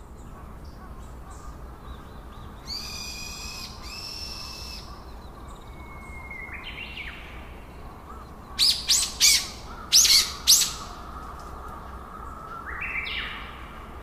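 Red-whiskered bulbul singing in short whistled phrases, loudest a quick run of five sharp notes about two-thirds of the way through.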